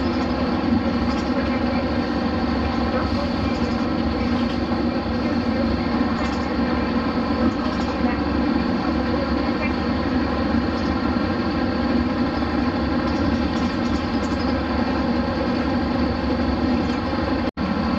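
Diesel engine of a Hino Blue Ribbon RC monocoque bus running steadily, heard as an even, pitched drone with low rumble. The sound cuts out for an instant near the end and then carries on unchanged.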